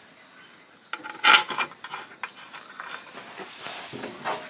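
Small metal parts and hand tools clinking and scraping against each other, with a sharp clatter about a second in followed by lighter scattered clicks.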